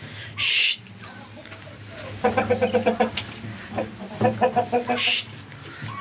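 Chickens clucking in two quick runs of rapid, evenly spaced clucks. Two short rushing noises, one soon after the start and one near the end, are the loudest sounds.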